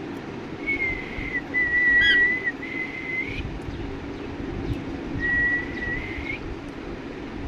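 Whistling in long, steady, high notes: three held notes in a row in the first half and one more about five seconds in, each ending with a slight upward slide. A short chirp comes about two seconds in.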